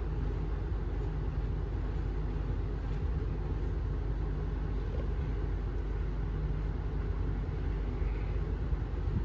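Steady low background rumble at an even level, with no distinct events; the glass pen's writing itself is not heard.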